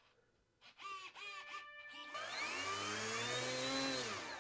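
FMS Ranger's brushless electric motor spinning the propeller on a bench throttle test. A few short blips come first, then about two seconds in it is throttled up, its whine rising in pitch and holding, and it eases off near the end.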